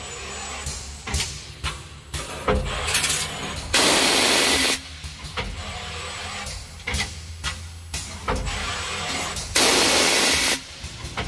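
Automated wire-bending machine at work: clicks and knocks from its mechanism over a steady low hum, with two loud hissing bursts of air, each about a second long, one near the middle and one near the end.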